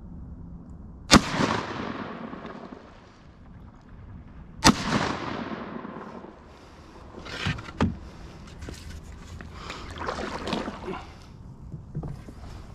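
Two shotgun shots about three and a half seconds apart, each echoing away over the water, then a few softer knocks.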